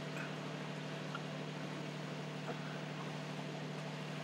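A sailing yacht's engine running steadily under way, a low, even hum with a light hiss over it.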